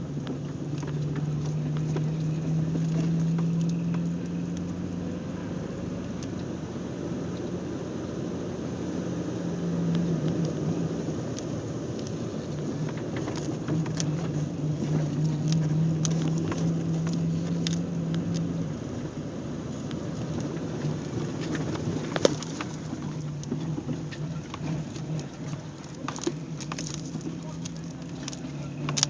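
Off-road vehicle engine running steadily, swelling and easing as the throttle changes. Scattered sharp ticks and knocks sound over it, the loudest about two-thirds of the way through.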